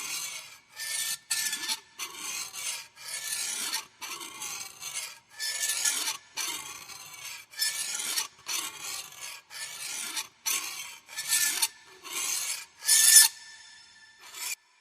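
A rasping scrape repeated over and over, about one harsh stroke a second, like a file or saw drawn back and forth; the loudest stroke comes near the end and leaves a faint ringing tail.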